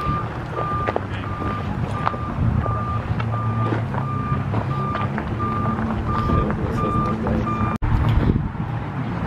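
A vehicle's reversing beeper sounding a steady series of short single-pitch beeps over a low engine rumble; the beeps stop about three quarters of the way through.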